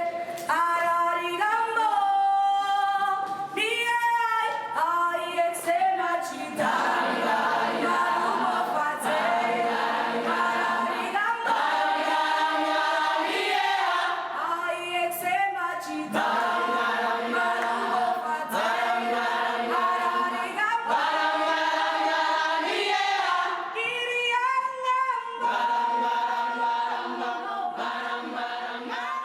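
Choir singing a worship song a cappella, several voices in harmony.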